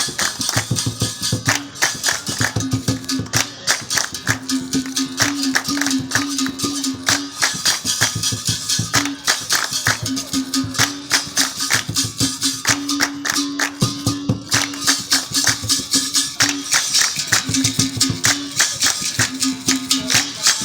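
Rhythmic percussion music with many fast, even strikes and a shaking rattle, over a short pitched phrase that repeats again and again.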